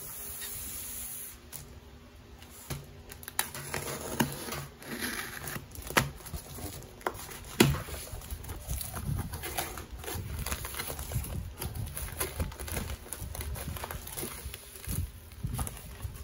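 Cardboard box being opened by hand, its flaps pulled back and scraping, then the crinkle of bubble wrap as a wrapped package is handled and lifted out, with irregular sharp clicks and knocks throughout.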